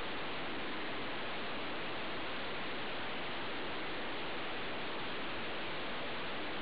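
Steady, even hiss with no distinct events: room tone and recording noise.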